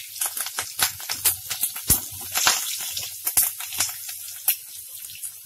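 Chopped garlic and green chillies sizzling in hot oil in a wok, with a steady hiss and many sharp crackles and pops as they are stirred.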